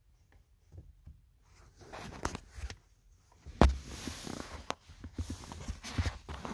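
Taps, knocks and rubbing as a sock-clad foot presses a car's metal-faced pedals and shifts on the floor mat, mixed with handling noise as the camera is moved. The loudest is a sharp knock about three and a half seconds in, followed by about a second of rustling.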